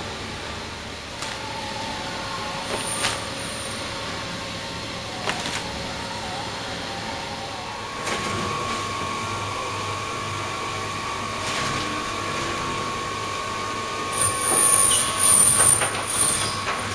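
Conveyor belts and cut-flower processing machinery running with a steady mechanical hum and a few clicks. Near the end comes a louder burst of high-pitched squealing and clatter.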